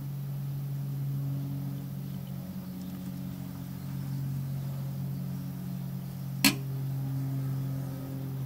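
A steady low machine hum, with one sharp click about six and a half seconds in.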